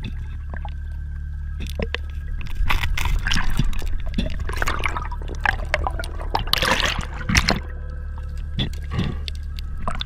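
Water noise heard underwater: a steady low rumble with a busy middle stretch of bubbling, sloshing and sharp clicks, from about two and a half to seven and a half seconds in, as a spearfisher wrestles an octopus out of a rock crevice.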